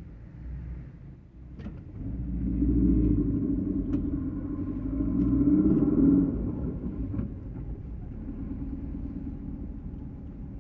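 Car engine and road rumble heard from inside the cabin as the car pulls away from stopped traffic. It builds about two seconds in, peaks around six seconds, then settles to a steadier cruising rumble.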